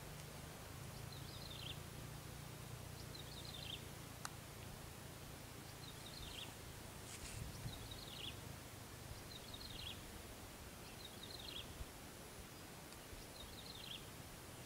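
A bird calling faintly and repeatedly, about ten short high calls, each a quick run of a few falling notes. A faint low hum lies under them, strongest in the first few seconds.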